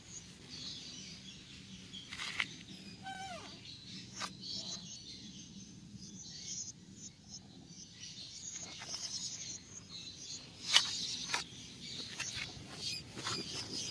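Faint birds chirping outdoors, with a few sharp clicks, the loudest about eleven seconds in.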